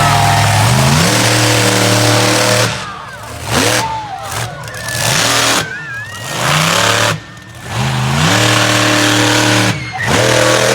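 Monster truck engine revving hard, the throttle let off and opened again several times so the loud engine note keeps dropping away and climbing back up.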